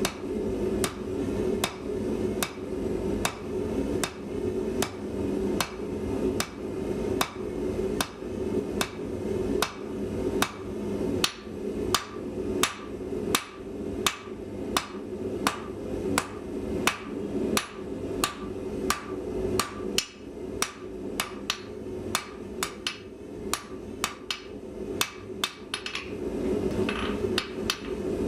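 Blacksmith's hand hammer striking hot steel on an anvil at a steady pace of about two blows a second, forging the bar of a fire poker. A steady low hum runs underneath.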